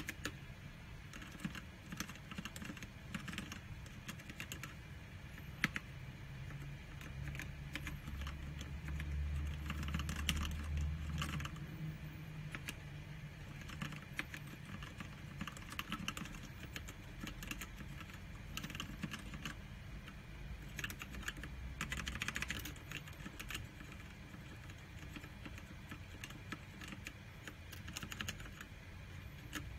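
Typing on an Aula Wings of Liberty mechanical keyboard with black linear switches: an irregular run of key clicks and clacks. A low hum joins for a few seconds around the middle.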